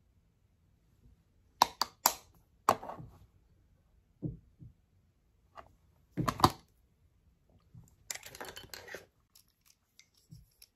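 Makeup pencils and their caps being handled, set down and picked up: a few sharp clicks, two duller thuds, louder knocks about six seconds in, then about a second of rustling clatter.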